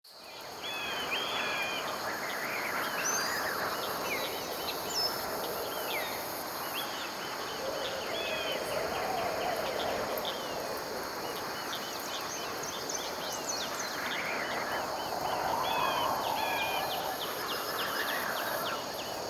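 Small birds chirping and twittering again and again over a steady rushing background noise.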